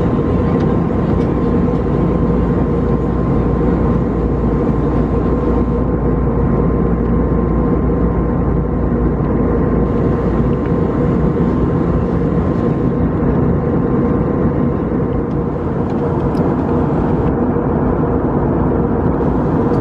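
Steady cabin noise of an Airbus A321neo in flight: a constant engine and airflow drone with a faint steady whine over it.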